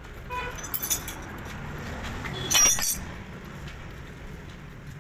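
Metal parts clinking: a few light clinks, then one loud, bright ringing clink about two and a half seconds in, over a low steady rumble.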